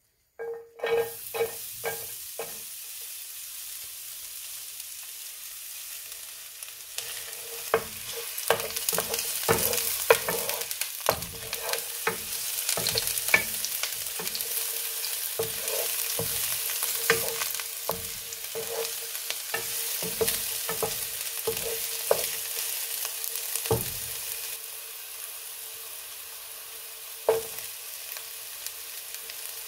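Chopped red onion tipped into a lightly oiled nonstick frying pan and sizzling gently over low heat. A wooden spoon knocks and scrapes against the pan again and again as the onion is stirred, then falls still near the end while the sizzle goes on.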